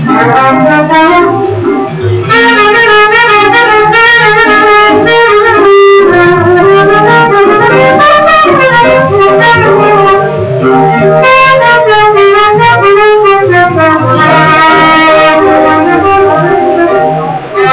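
Jazz band music, loud and continuous, with brass carrying the melodic lead over the band.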